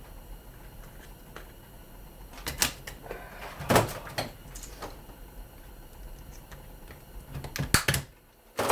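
Side cutters working a small retaining clip off an appliance's squirrel-cage fan motor: a few sharp clicks and knocks of the tool and parts, the loudest about four seconds in and a quick cluster near the end.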